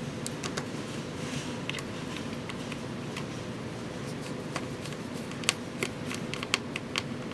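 Small Phillips screwdriver working the tiny screws out of a Samsung Galaxy S2's plastic back housing: faint, irregular ticks and clicks over a steady hiss, with a few sharper clicks late on.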